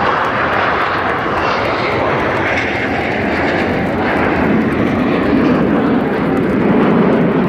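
Formation of Aermacchi MB-339 jet trainers, each with a single Rolls-Royce Viper turbojet, making a steady jet roar as they fly past, the sound deepening and growing a little louder in the second half.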